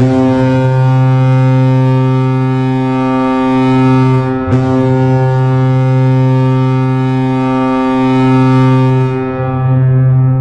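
Hockey goal horn sounding one long, steady horn blast that starts abruptly, breaks off for an instant about four and a half seconds in, then begins to die away near the end.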